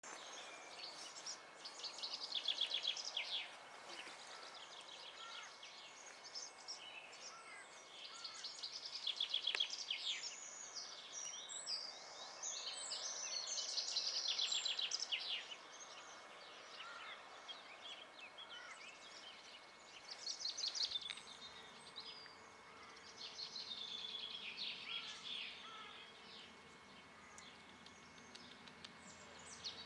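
Wild songbirds singing: repeated high, rapid trilled phrases of about two seconds each, coming every few seconds, with a few softer chirps between them.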